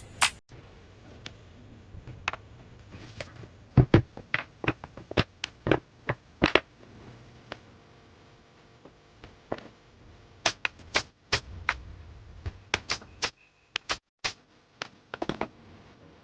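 Irregular sharp clicks and knocks, some single and some in quick runs of several, with short pauses between them.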